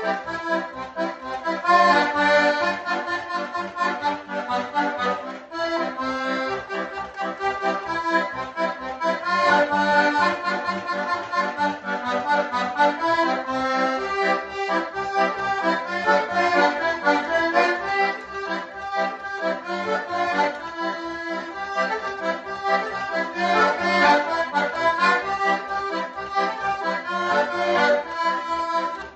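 Diatonic button accordion (melodeon) playing a lively French polka: a quick melody over a steady, evenly pulsed bass-and-chord accompaniment.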